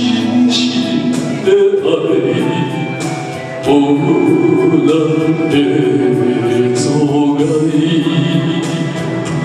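A man singing into a microphone over a karaoke backing track with a steady beat.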